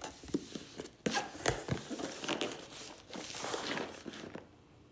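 Cardboard shipping box being opened by hand: a sticker seal torn off the lid, then the cardboard flaps pulled open with scraping, rustling and several sharp snaps, dying away near the end.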